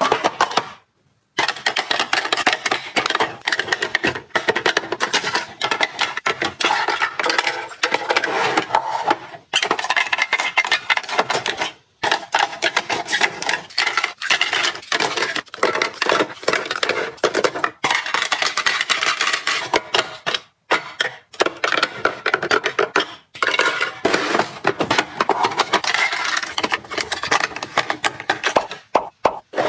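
Close-up clatter and clinking of household items and containers being handled and set down, with many small clicks and rustles, cut into several short takes with brief silences between them.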